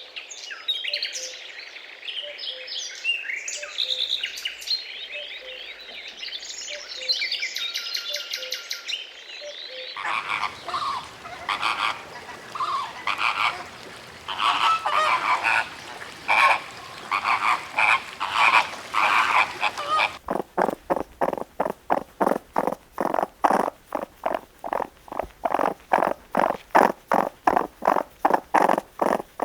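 Animal calls in three sections that change abruptly about ten and twenty seconds in: high chirping calls first, then broader pulsed calls, and finally a fast, even train of croak-like pulses, about three a second.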